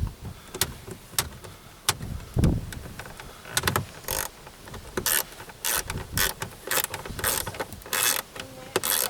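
Hands and tools working on plastic dash trim under a car dashboard: a few sharp clicks and a dull knock, then a run of short scraping rasps, roughly two a second.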